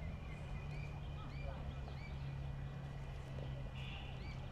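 Birds chirping in short, repeated rising-and-falling notes, over a steady low hum and open-air background noise.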